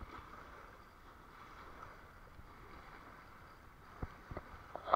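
Small waves lapping and splashing against a stone-paved embankment, with a steady wash of water and wind. A few sharp knocks come near the end, the last one the loudest.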